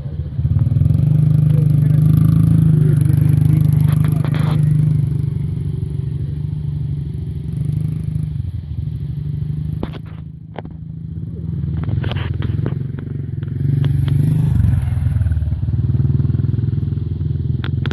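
Small dirt bikes running at low speed with a loud low rumble. It is louder in the first few seconds, eases off about ten seconds in, and builds again near the end.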